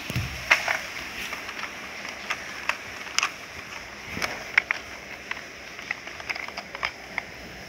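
Scattered, irregular clicks and light knocks of a small plastic toy car being picked up and turned over in the hand.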